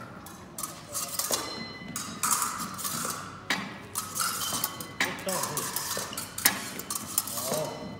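Épée blades clashing and scraping against each other again and again in a fencing lesson, a quick string of sharp metallic clinks, some ringing briefly.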